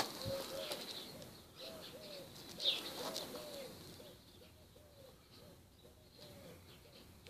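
Dove cooing over and over in a steady run of short, soft notes that fades after about four seconds. Another bird gives a single sharp falling chirp a little under three seconds in.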